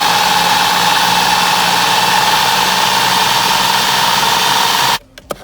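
Electric food chopper running at full speed, blending fresh herbs, garlic and scallions into a green seasoning; a steady motor whine that climbs a little, then cuts off suddenly about five seconds in.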